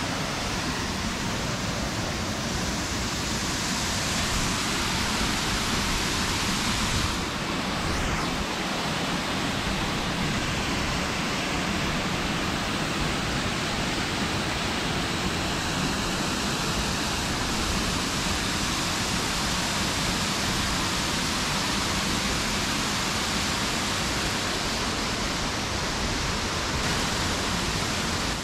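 Waterfall rushing: a steady, unbroken noise that fills the whole range from low to high.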